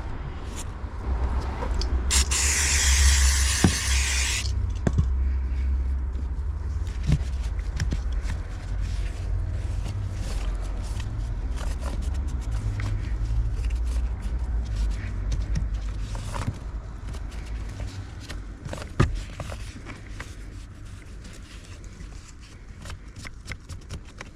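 A hiss of spraying, lasting about two seconds and starting about two seconds in, among scraping and scattered clicks of parts being handled, over a low rumble.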